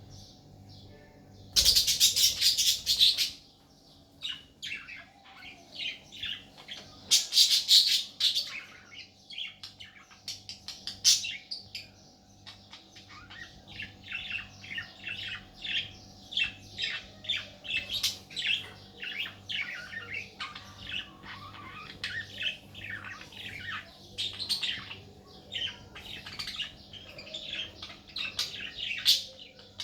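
Budgerigar chattering: two loud, harsh squawking bursts in the first eight seconds or so, then a steady run of rapid short chirps and warbles.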